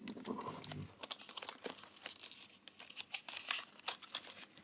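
Retail product packaging being opened by hand: irregular crinkling and rustling with small clicks and taps.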